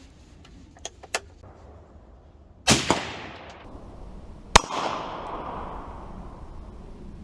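20-inch AR-15 in 5.56 firing Tula steel-cased full metal jacket rounds: two loud shots about two seconds apart, each trailing off in a long echo. Two light clicks come about a second in, before the first shot.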